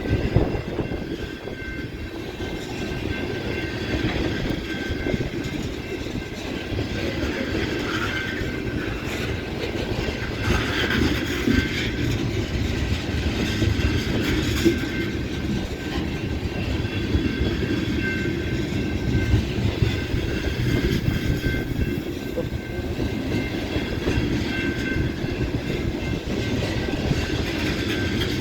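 Long freight train's cars rolling past, a steady rumble of steel wheels on rail with a faint high steady whine over it.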